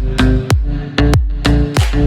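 Electronic dance music with a strong beat of about two strokes a second over a deep bass line.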